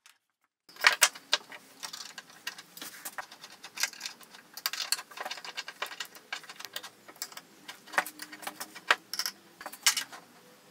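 Steel and cast-iron parts of a small vise being handled and fitted together on a wooden bench: many small metallic clicks, taps and knocks, irregular, starting about a second in.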